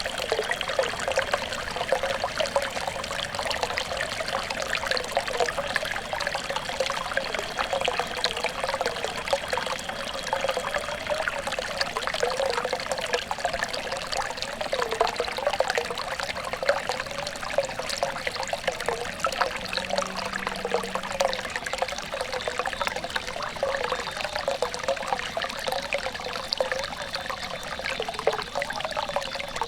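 Running water trickling and splashing steadily, a dense patter of small droplets and gurgles. A faint thin high tone sits under it for the first third and again near the end.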